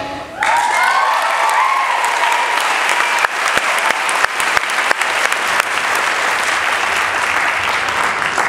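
Theatre audience applauding as a dance number ends, starting about half a second in. High cheering and whoops ride over the clapping for the first few seconds, then steady clapping carries on.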